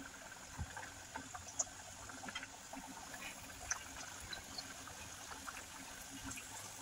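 Kachoris deep-frying in hot oil: a faint, steady sizzle with scattered small crackles and pops.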